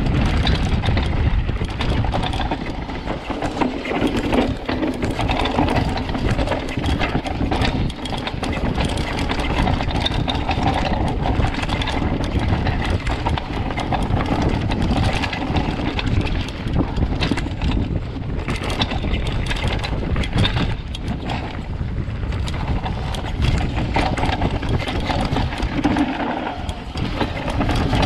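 Downhill mountain bike running fast over a rough dirt forest trail: tyres on dirt and roots with a steady clatter of knocks and rattles from the bike. Wind buffets the microphone as a low rumble.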